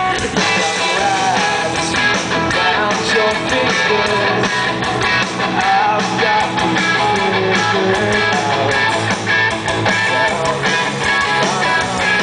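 Live rock band playing loud, with electric guitars over a steady beat, amplified through a venue PA and recorded from within the crowd.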